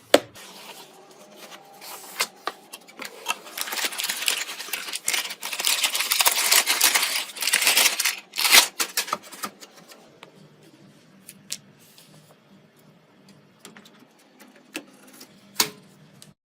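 Computer parts being handled and fitted by hand: a run of clicks, scrapes and rustling, densest in the middle, then scattered clicks and one sharp click near the end.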